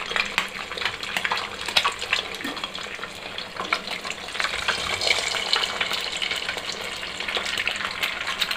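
Eggs frying in hot oil in a nonstick wok: a steady sizzle full of small pops and crackles. It grows louder about halfway through as a second egg is cracked into the oil.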